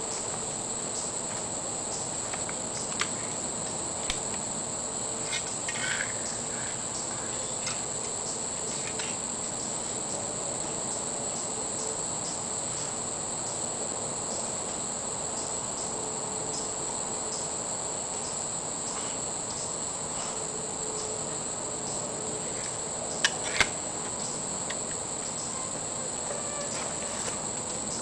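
Steady chorus of crickets and other insects: a continuous high buzz with a regular pulsing chirp. A few faint sharp clicks come a few seconds in, and two louder clicks close together come near the end.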